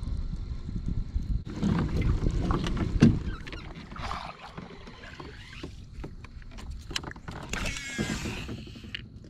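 Handling noise of gear in a plastic fishing kayak, rustling and knocking over a constant low rumble, with a sharp hollow thump about three seconds in. A short squeak sounds near the end.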